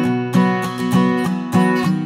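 Background music: an acoustic guitar strumming chords in a steady, even rhythm.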